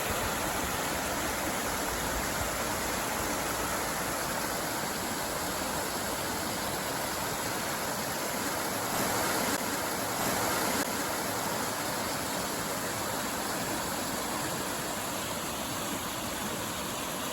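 Waterfall's falling water, a steady rush.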